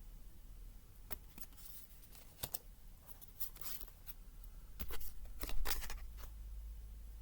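Tarot cards being handled: a scattered series of light clicks and short papery slides as cards are picked up and laid down, the loudest cluster about two-thirds of the way in. A low steady hum runs underneath.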